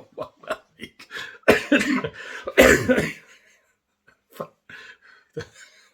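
A man laughing in short, breathy bursts, the loudest about one and a half and two and a half seconds in, then a few softer ones.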